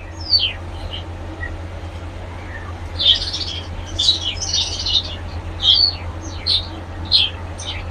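Caged birds chirping over and over in short, high, falling calls, over a steady low hum.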